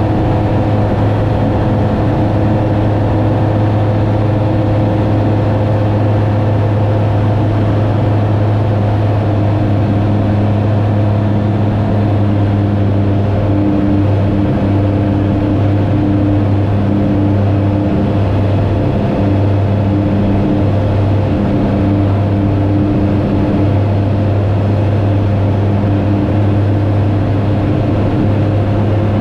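Aeroprakt A-22 Foxbat's engine and propeller running at a steady power setting in flight, heard from inside the cockpit as a constant low hum.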